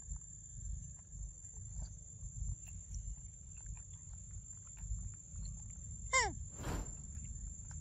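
A macaque eating a papaya: faint wet biting and chewing clicks over a low rumble and a steady high whine. About six seconds in comes one short, falling squeak-like call, then a brief rustle.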